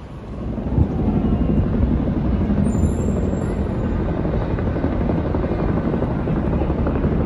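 A formation of helicopters flying past, their rotors giving a loud, steady low beat that comes up strongly within the first second.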